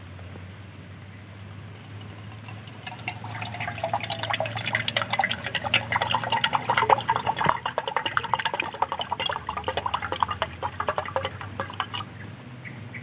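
Liquid being poured into a container for about nine seconds, splashing and pattering, its note rising as the container fills.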